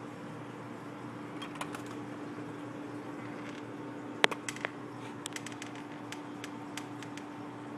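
Scattered light clicks and taps over a steady low hum. The sharpest click comes a little past four seconds in, followed by a run of quick ticks.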